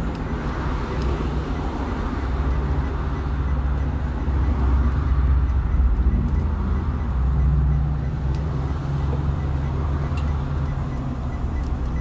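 School bus engine droning steadily with road noise, heard from the driver's seat of the moving bus; it grows a little louder about halfway through.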